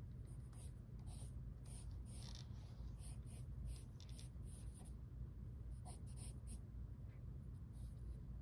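Pencil scratching on drawing paper in a run of short strokes, with a brief pause about five seconds in, over a steady low hum.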